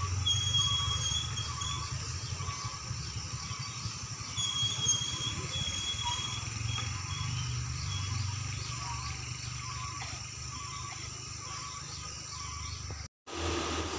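Cars and motorcycles passing slowly on the road, their engines a steady low rumble. A high, thin animal call sounds twice in the background.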